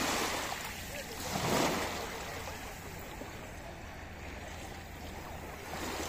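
Small waves breaking at the water's edge and washing up over sand and shells. The surf swells twice in the first two seconds, then settles to a softer, steady wash.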